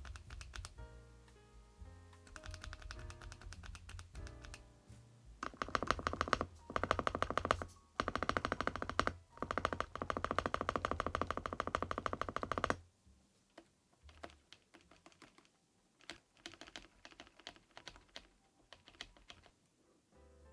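Typing on an Infi75 gasket-mount, foam-filled mechanical keyboard with PBT keycaps, with background music. It starts with some keystrokes, then runs into fast continuous typing for about seven seconds, then slows to scattered single keystrokes as the music drops away. The keystrokes have a muted, rounded sound (kotokoto).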